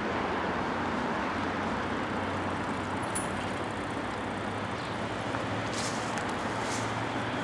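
Steady city road traffic noise: an even, continuous hum of vehicles with a faint low drone.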